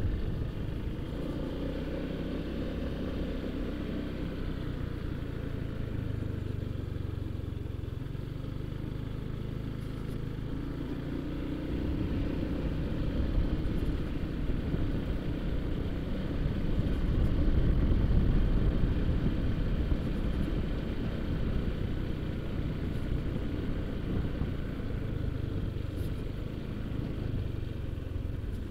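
Honda ADV150 scooter's single-cylinder engine running at low speed, with low rumble on the microphone. It grows louder about halfway through, then eases off.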